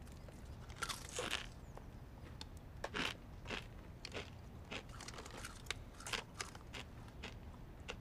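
Crunchy cone-shaped snack crisps being bitten and chewed with the mouth full: irregular crunches, loudest about one and three seconds in.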